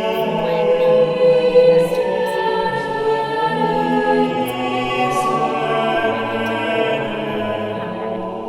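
Choir singing slow, long-held chords.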